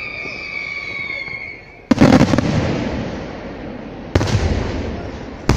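Aerial firework shells at a fireworks display: several whistles falling in pitch fade out in the first second and a half, then two loud shell bursts about two seconds apart, each followed by a rumbling tail, and a third bang right at the end.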